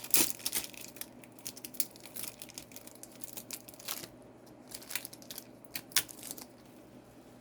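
Thin plastic wrapping crinkling and tearing as it is pulled off a small toy figure, in irregular crackles with a few sharper snaps, the loudest just after the start and about six seconds in.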